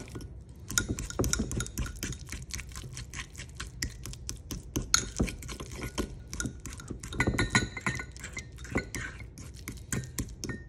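A fork mashing and stirring soft garlic butter in a small ceramic bowl, its tines clinking and scraping against the bowl in quick, irregular taps.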